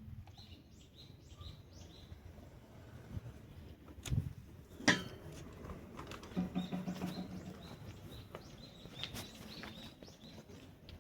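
Small birds chirping in short, high, repeated notes, with two sharp clicks about four and five seconds in.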